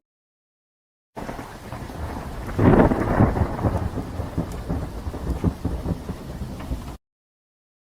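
Thunderstorm: steady rain with a rumble of thunder swelling about two and a half seconds in. The sound begins after about a second of dead silence and cuts off suddenly near the end.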